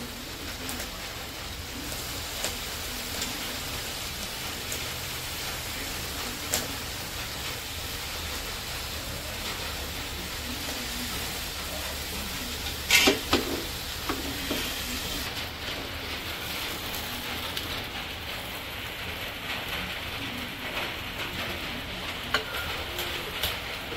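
Bread slices frying in milk in a nonstick pan, with a steady sizzle. A few sharp metal clinks, the loudest about halfway through, as a steel spoon works against the pan.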